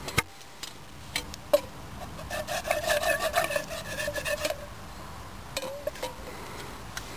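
Carved wooden stick scraping stuck noodle off the bottom of a 12 cm Zebra stainless steel billy can with hot water in it. A few knocks of wood on steel, then a couple of seconds of rasping scrape from about two seconds in, and a few more knocks near the end.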